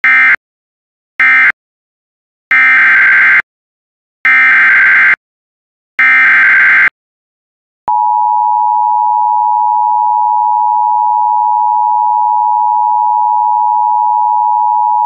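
Emergency Alert System signalling. First come two short squawks of end-of-message data, then three longer squawks of SAME header data announcing the next alert. About eight seconds in, the steady two-tone EAS attention signal begins and holds.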